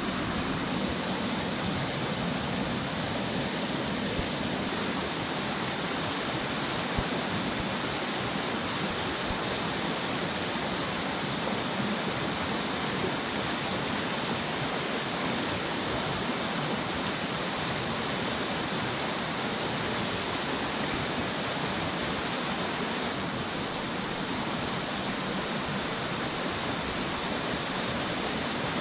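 Small rocky stream running with a steady rushing noise, while a bird calls four times with a short, very high series of descending notes.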